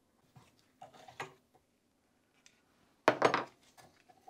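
Light metallic clinks of an open-ended spanner against a rusty Škoda 105 front brake caliper and its brake-line fitting, with a louder clatter of metal on metal about three seconds in.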